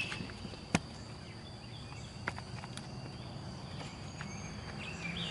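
Quiet outdoor background with a few short bird chirps near the start and again near the end, a single sharp click just under a second in, and a few fainter ticks.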